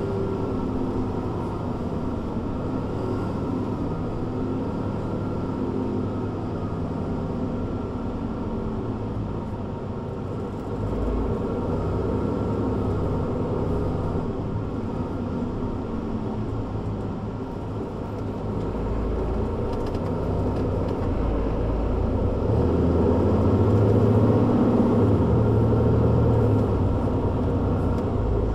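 Mercedes-Benz Citaro C2 G articulated city bus's diesel engine running under way. It gets louder about a third of the way in and louder still through the second half as it pulls harder, then eases off near the end.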